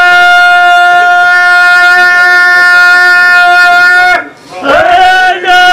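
A man's voice drawing out one long, steady, high call for about four seconds, then after a brief break a second, shorter held call.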